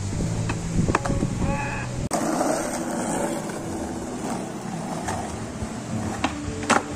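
Skateboard on a concrete road: wheels rolling with several sharp clacks of the board, the loudest near the end. A short pitched call, like a bird's, sounds about a second and a half in.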